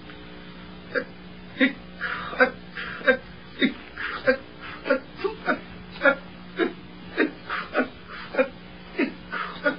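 A person's voice making short sounds that fall in pitch, about two a second, over a steady low hum.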